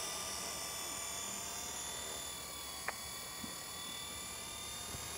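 Brushed electric motors of an XK V912-A radio-controlled helicopter in flight: a faint, steady whine with several high tones held level, and one small click about three seconds in.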